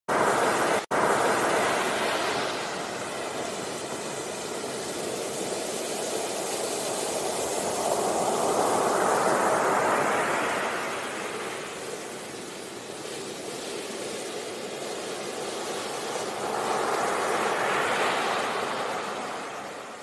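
Ocean surf: waves breaking and rushing up the beach in slow surges, louder at the start, about halfway through and again near the end. The sound cuts out for an instant just under a second in.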